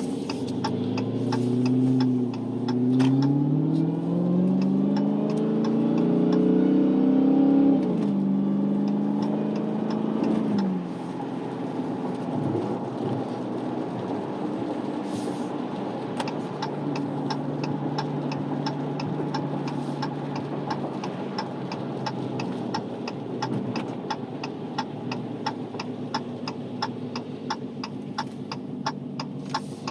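Dodge Challenger SRT Hellcat Redeye's supercharged 6.2-litre Hemi V8 accelerating: revs rise, dip at a gear change about two seconds in, and climb again for several seconds, then drop away and settle to a steady low cruise. A regular ticking, about two a second, runs beneath the engine in the later part.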